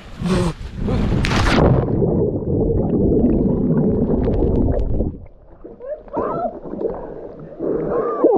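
Two splashes about a second apart as people jump feet-first into deep water, then the muffled rushing and gurgling of bubbles with the camera under water. It drops quieter after about five seconds, when a few short voice sounds are heard.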